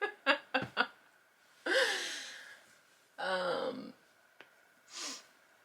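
A woman's breathy non-speech sounds: a few short laugh-like puffs at first, then a long sigh, a second voiced sigh, and a short exhale near the end.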